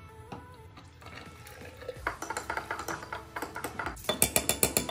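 Coffee poured from a French press over ice in a glass mason jar, then a metal spoon stirring the iced coffee and clinking against the glass and ice. The clinks get quicker and louder near the end, about eight a second.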